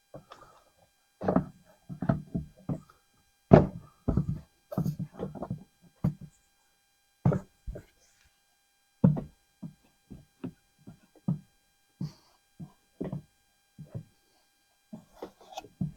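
Irregular series of short plastic knocks and thunks from the air filter and air box housing being handled and seated.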